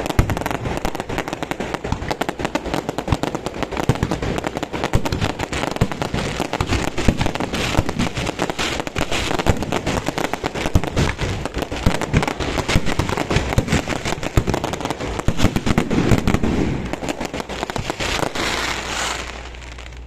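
Fireworks display: a dense, continuous barrage of rapid bangs and crackling pops that dies away about a second before the end.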